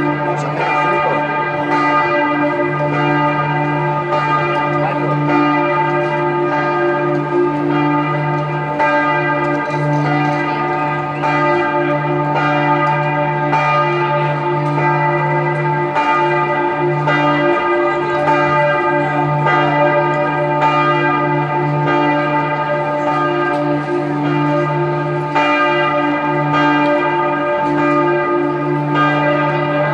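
A single tower bell swinging full-circle in its belfry, its clapper striking at a steady, even pace so that the ringing never dies away between strokes.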